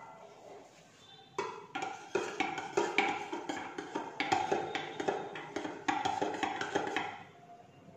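A metal spoon stirring liquid in a stainless steel mug, clinking against the sides in quick, irregular ringing taps. The clinking starts about a second and a half in and stops shortly before the end.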